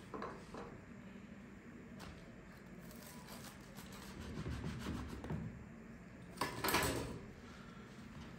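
Faint rubbing and scraping sounds of food being handled and prepared, with a brief louder scrape about two-thirds of the way in.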